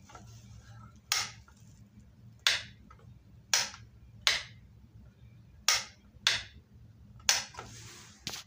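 Wall light switch clicked off and on repeatedly, about eight sharp clicks, several in quick pairs, switching a homemade LED panel light. A faint low hum runs underneath.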